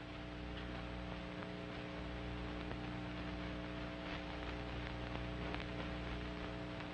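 Steady hum and hiss of a 1930s film soundtrack, with a few faint clicks.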